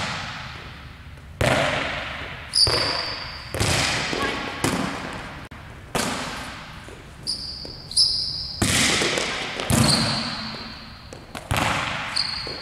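Volleyballs being hit and forearm-passed, with balls landing on the court: about ten sharp smacks one to two seconds apart, each ringing out in a long hall echo. Short high squeaks between the hits from athletic shoes on the sport-court floor.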